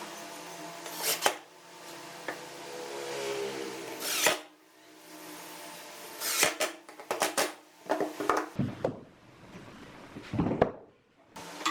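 Woodworking workshop sounds: a power tool's motor humming, then a series of sharp knocks and clatters of wood being handled.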